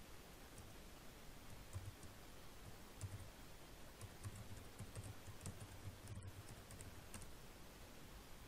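Faint computer keyboard typing: a quick run of light key taps from about two to seven seconds in, as a layer name is typed.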